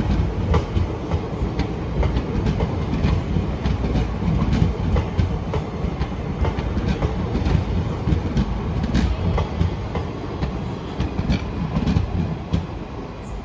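Indian Railways express passenger coaches passing at speed: a steady rumble of wheels on rail, broken by sharp clacks as the wheelsets cross rail joints. The sound falls away near the end as the last coach goes by.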